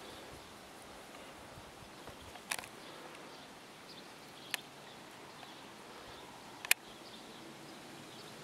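Faint, steady outdoor ambience, broken by three short, sharp clicks about two seconds apart, the last one the loudest.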